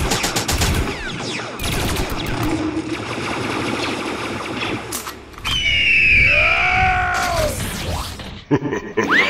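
Sound-effect gunfire: rapid bursts of shots, then a long pitched screech that rises and falls about halfway through.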